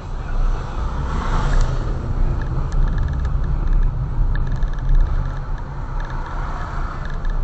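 A motor vehicle running on the road, with a steady low rumble and road noise that swells about a second in and again near the end.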